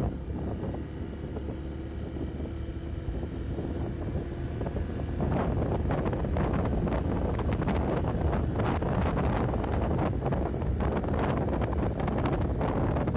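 Motorcycle riding with wind buffeting the microphone over a low engine rumble. A faint steady engine tone is heard in the first few seconds. About five seconds in the wind noise grows louder and gustier.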